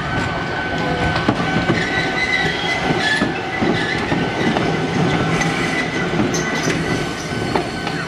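A Keifuku Electric Railroad (Randen) tram car rolling past at close range. Its wheels rumble and click over the rail joints, with short high squeals from the wheels on the rails about two seconds in and again near the end.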